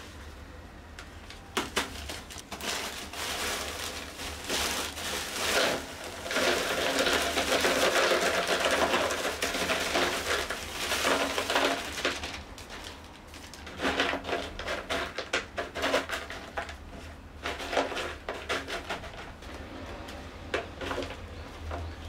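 Small white pot-bottom stones poured from a plastic bag into a plastic planter box, clattering against the plastic and each other while the bag crinkles. The pour is densest in the middle, followed by scattered clicks of stones being shifted and settling.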